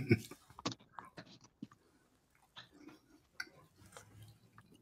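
Faint chewing of a burrito close to a microphone, with scattered short, soft mouth clicks and smacks.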